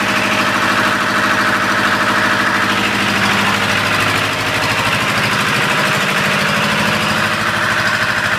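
Vintage engine-driven generator set running at a steady speed, a constant even beat.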